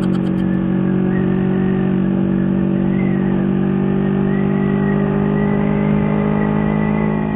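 Engine of a Honda CB motorcycle fitted with a four-stroke Kawasaki Ninja engine and a Ninja-fit aftermarket exhaust, running at steady revs while riding, heard from the rider's seat.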